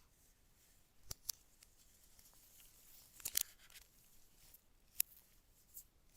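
A few short, sharp clicks and light taps, spaced a second or two apart, against a faint room background: handling noise.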